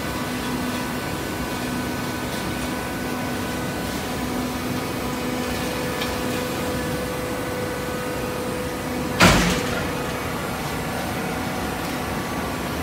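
Horizontal hydraulic baler running with a steady mechanical hum and a constant whine, broken by one sudden loud clunk about nine seconds in.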